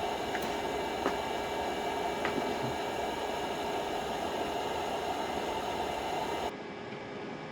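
Smoke machine switched on and running: a steady hissing buzz with a low hum under it, which cuts off suddenly about six and a half seconds in.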